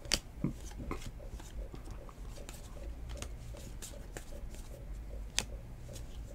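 Trading cards being flipped one at a time through a hand-held stack: soft ticks and rustles of cardstock, with a couple of sharper clicks, over a steady low hum.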